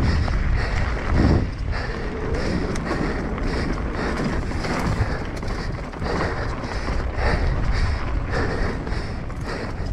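Mountain bike descending fast over loose dirt and rock: wind rushing over the camera microphone, with tyres crunching on the gravel and the bike rattling over bumps, one harder knock about a second in.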